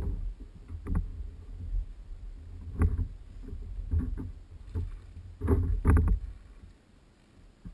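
Water splashing beside a kayak in several short, irregular bursts, over a steady low rumble.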